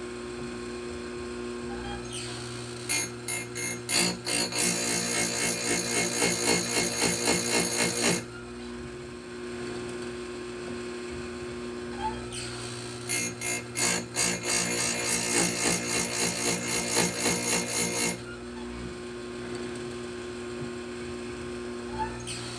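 Electric chain grinder's motor running with a steady hum, broken twice by about five seconds of quick, pulsing rasping as the grinding stone is brought down onto a saw-chain cutter tooth to sharpen it.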